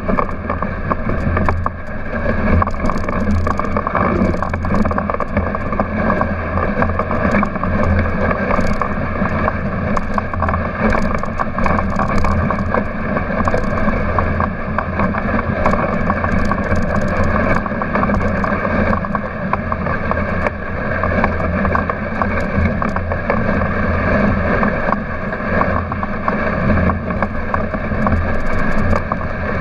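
Dog sled running fast over a snowy trail: a steady, loud rush of the runners over snow and the sled rattling, with scattered small knocks and wind buffeting the microphone.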